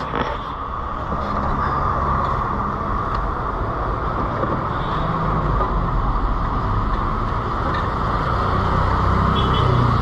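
Steady noise of road traffic and vehicle engines running.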